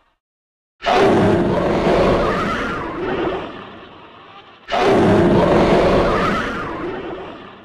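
Two long monster roars, the sound effect of a fictional kaiju. The first starts about a second in and the second about halfway through; each begins abruptly and fades out slowly.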